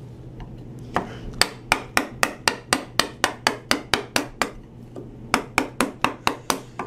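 A wooden mallet tapping a bench chisel into white oak in a fast, even run of light strikes, about four a second, chopping down the waste at the end of a stopped dado.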